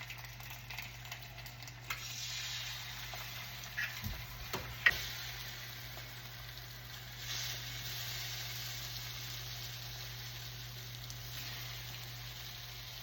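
Food sizzling in a hot frying pan, the hiss swelling about two seconds in and again a few seconds later, with a couple of sharp knocks about four to five seconds in.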